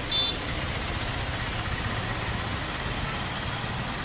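Traffic in heavy rain: auto-rickshaw and car engines running over a steady hiss of rain and tyres through standing water, with one brief high beep near the start.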